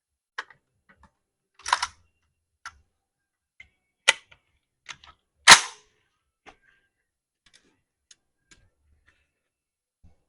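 7.62x51mm (.308) cartridges being pressed one at a time into a Galil rifle magazine, giving irregular metallic clicks and snaps. The two loudest come about two seconds and five and a half seconds in, with fainter ticks toward the end.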